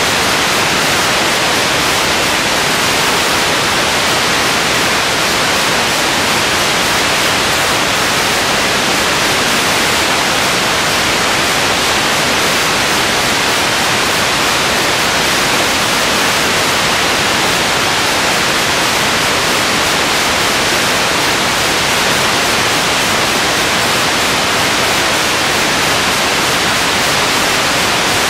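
Steady, loud hiss of static with no other sound, the kind of noise left on the soundtrack of an old film or tape transfer.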